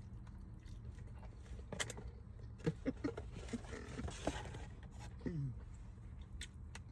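Close-up mouth sounds of someone biting into and chewing roasted chicken: soft smacks and clicks, a few short hums around three seconds in, and a falling "mmm" a little after five seconds, over a steady low hum.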